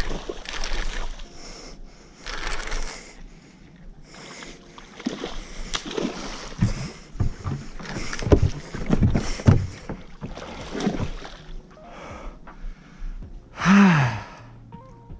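Bursts of water splashing as a big hooked fish thrashes, mixed with a man's gasps and grunts, and a loud drawn-out groan near the end as the fish breaks off on a frayed leader.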